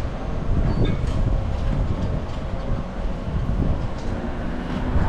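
City street ambience: a steady low rumble with an even background hiss and no distinct events.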